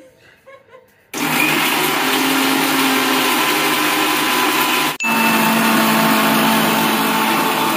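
Electric kitchen mixer grinder running at full speed. It starts about a second in, cuts out for an instant near the middle and starts again, then begins to wind down near the end.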